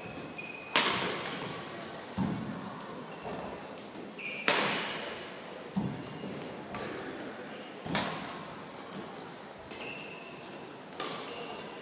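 Badminton singles rally: rackets striking the shuttlecock every one to three seconds, some sharp loud hits and some softer, with short high squeaks of court shoes and footfall thuds between the shots.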